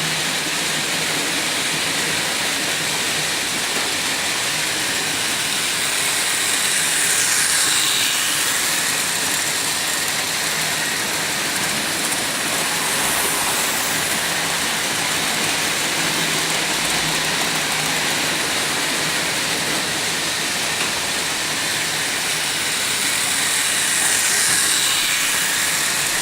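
Märklin model train running on its track: a steady whirring and rattling, with a faint motor hum. It swells louder twice, about 17 seconds apart, as the train comes round close by.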